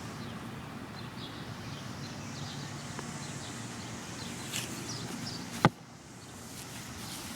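Outdoor roadside ambience: birds chirping over a low hum of traffic, with one sharp knock about two-thirds of the way through, after which the background briefly drops quieter.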